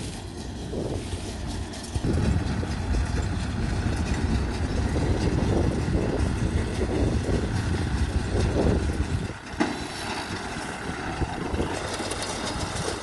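Kubota tractor's diesel engine running under load as it drives a small round baler picking up rice straw. The sound steps up louder about two seconds in and drops back near ten seconds.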